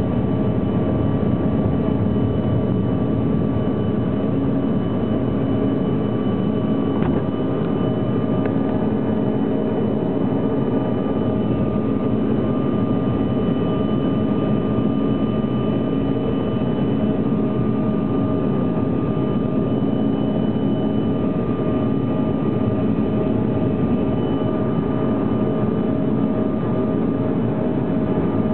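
Jet airliner engines running at climb power, heard from inside the cabin during takeoff: a loud, steady roar with a few steady high whining tones.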